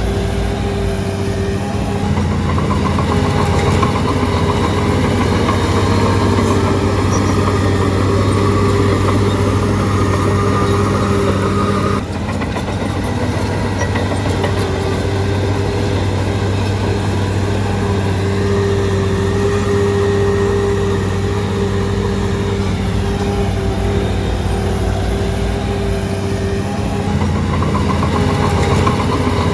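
Shantui DH17C3 bulldozer's diesel engine running steadily, its note wavering slightly, with a brief drop in level about twelve seconds in.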